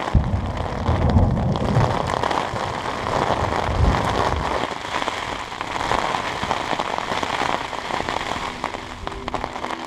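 Steady rain pattering, with a strong low rumble through the first four seconds or so.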